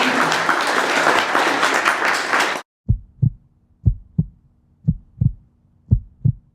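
Applause cuts off suddenly, then comes a heartbeat sound effect: double thumps (lub-dub), about one pair a second, over a faint steady hum.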